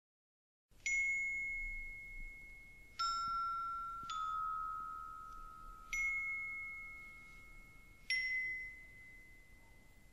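Music: five slow, single bell-like chime notes, each struck and left to ring out and fade, about one to two seconds apart, starting about a second in.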